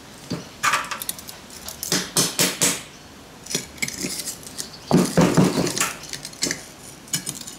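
Irregular metallic clinks and knocks of a freshly poured brass casting being pulled from its sand mould with pliers and the wooden moulding flask handled over the sand tub, with a heavier cluster of knocks about five seconds in.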